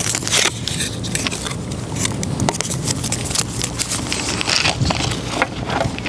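Clear plastic packaging of a packet of pre-tied hooklengths crinkling and crackling as it is handled and opened, a run of irregular small crackles.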